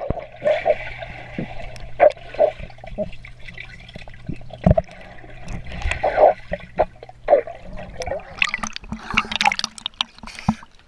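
Pool water heard underwater through a submerged camera housing: muffled gurgling bubbles and sloshing over a steady low hum. The hum stops about eight seconds in, as the camera comes up into the air, and splashing follows.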